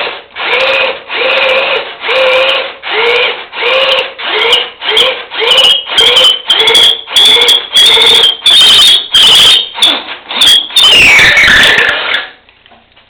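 Handheld power drill boring a half-inch hole into dead ash wood, run in short pulses about twice a second, each pulse spinning up with a rising whine. The pulses grow louder and squealing as the bit goes deeper, and end in a falling whine as the drill winds down.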